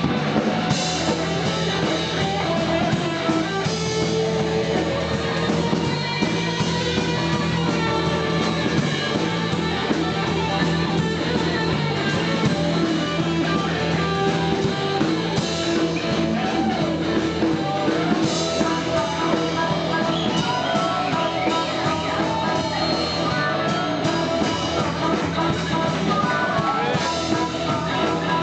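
Blues-rock band playing a boogie without vocals: electric guitar over a steady drum kit beat.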